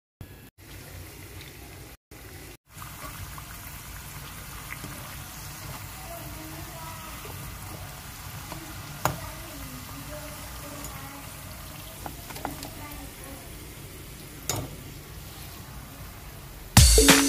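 Fritters deep-frying in a pan of hot oil, a steady sizzle, with a few sharp clicks of a metal slotted spoon against the pan. Loud music cuts in near the end.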